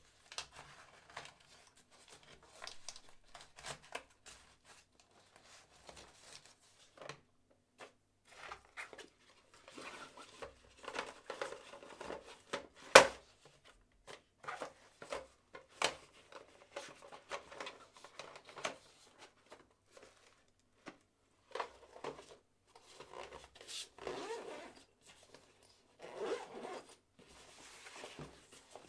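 Handling noises from the drill set and its fabric tool bag: irregular rustling, scraping and zipper sounds, with one sharp click about 13 seconds in.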